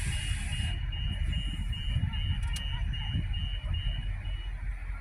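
3100 class diesel railcar rumbling in as it approaches, with a short hiss at the start. Over it a rapid, even, high-pitched beeping, about three beeps a second, stops near the end.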